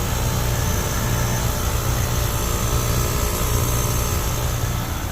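3-ton Trane gas pack air conditioner running, running low on refrigerant charge: a steady low hum of the compressor with the even rush of the condenser fan.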